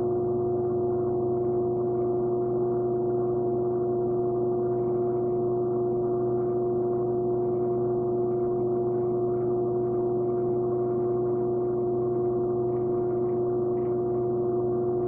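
Electric pottery wheel running: a steady, even hum. Faint, irregular soft sounds of wet hands working clay on the spinning wheel sit over it.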